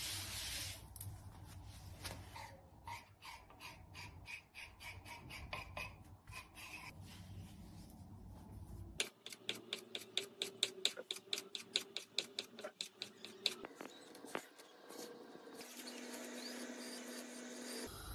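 Chef's knife cutting rolled, floured noodle dough into thin strips on a wooden board: even taps of the blade on the board, then, about halfway through, a fast run of sharp chops, the loudest part.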